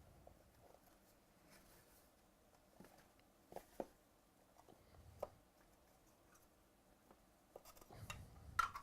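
Near silence with a few soft taps and rustles of trading cards being handled. There are two quick taps about three and a half seconds in, another about five seconds in, and a louder cluster near the end.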